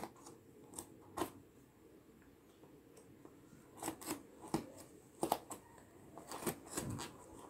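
Small scissors cutting the plastic seal tape on a cardboard box: faint, irregular snips and crackles of tape and packaging, coming thicker in the second half.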